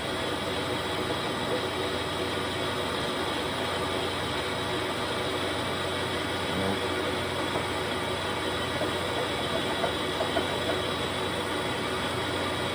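Mazak lathe running steadily with the part turning, a constant machine hum with a few light clicks about ten seconds in.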